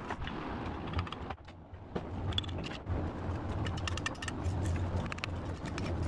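Brick trowels scraping mortar and tapping bricks into place on a brick wall: a run of sharp clicks and scrapes. A steady low hum runs underneath.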